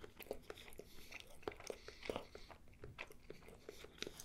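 Faint close-up chewing of a small bite of food: soft crunches and wet mouth clicks. Near the end, fingertips pick at crumbs on the tray.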